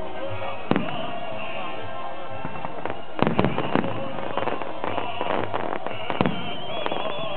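Aerial fireworks shells bursting overhead: one bang under a second in, then a quick cluster of bangs and crackles about three seconds in and a few more later, heard over steady music.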